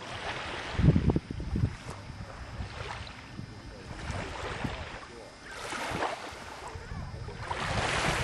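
Small waves lapping and washing onto a sandy lakeshore, swelling every couple of seconds, with gusts of wind rumbling on the microphone.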